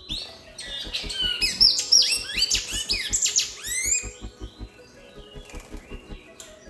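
A great-billed seed finch (bicudo) singing a fast run of clear whistled notes that sweep up and down, loudest for the first four seconds and then fading. Background music with a steady low beat plays under it.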